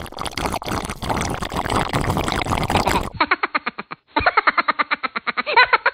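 Edited-in comic sound effects: a loud, harsh noisy blast for about three seconds, then a rapid fluttering pulse of about ten beats a second.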